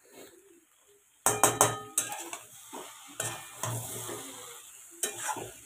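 Spatula scraping and stirring spiced soya chunks and potatoes around a metal kadai, over the sizzle of frying: the masala being sautéed (koshano). It starts about a second in with loud scrapes, and another run of scrapes comes near the end.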